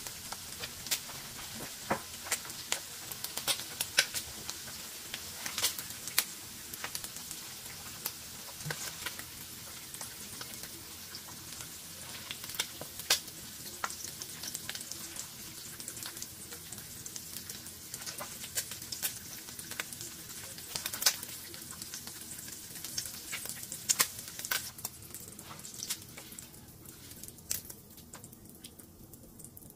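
Gizzards frying in hot oil in a nonstick wok, sizzling with frequent sharp crackles and pops while a spatula stirs them and lifts them out. The sizzle thins out near the end as the pan empties.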